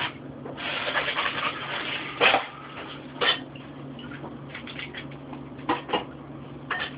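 Kitchen handling noises: scattered sharp knocks and clicks, with a stretch of rubbing or scraping in the first couple of seconds, over a steady low hum.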